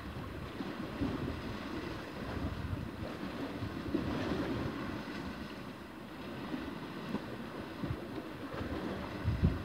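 Wind buffeting the microphone over the wash of sea waves against rocks, with a low thump near the end.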